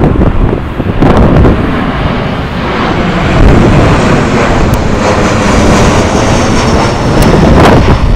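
Jet airliner's engines running as it comes in to land, mixed with strong wind buffeting the microphone. A high engine whine falls slowly in pitch in the second half.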